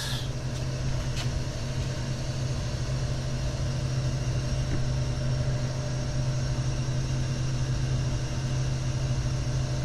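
Steady low mechanical hum of a running gas-fired commercial water heater and its boiler-room equipment, with a couple of faint clicks in the first second or so.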